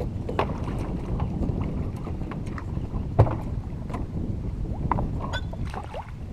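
Wind rumbling on the microphone, with scattered small clicks and knocks and one sharp knock about three seconds in.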